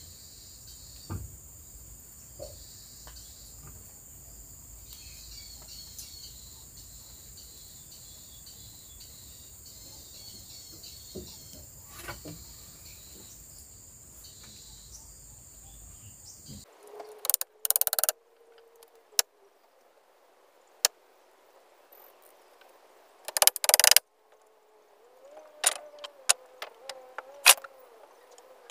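Outdoor ambience with a steady high-pitched insect drone and faint chirps. About two-thirds of the way in it cuts abruptly to near-quiet broken by two loud bursts of noise and scattered clicks.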